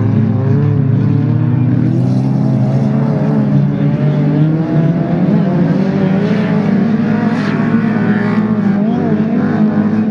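Several autocross touring cars' engines racing flat out together on a dirt track, pitches rising and falling as the drivers rev and shift.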